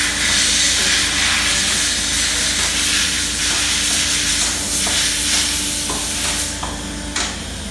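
Steady road and tyre noise from a moving car, a loud even hiss over a low rumble with a faint steady hum, thinning out briefly near the end.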